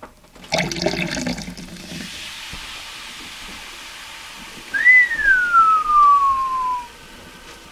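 Baking soda and vinegar fizzing in a cup, with a splashy burst of liquid about half a second in and a steady hiss after it. About five seconds in, a long whistled note slides down in pitch over two seconds.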